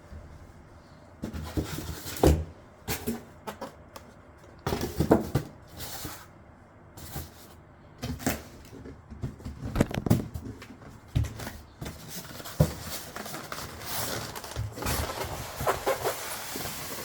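Packaging being handled during an unboxing: irregular knocks, thumps and rustling of cardboard and packing material.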